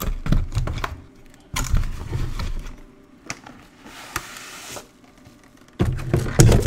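Cardboard product box being opened and handled, with scattered knocks, scrapes and rustling of packaging as a UV light fixture is pulled out. The loudest handling noises come near the end.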